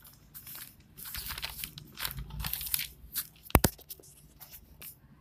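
Scattered crackling and rustling noises close to the microphone, with one sharp click about three and a half seconds in.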